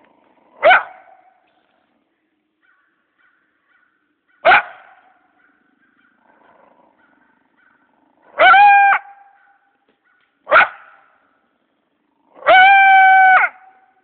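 Trapped coyote barking and calling: three short sharp barks a few seconds apart, and two drawn-out calls held at one steady pitch, the second and longer one lasting about a second near the end.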